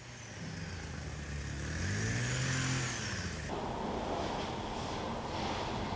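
A motor vehicle driving past, its engine note rising and bending back down, followed about three and a half seconds in by an abrupt change to a steady hiss.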